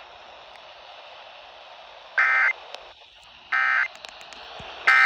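Emergency Alert System end-of-message data tones: three short, equally loud bursts of digital tones about a second apart, the code that closes the warning. Steady broadcast hiss comes before the first burst.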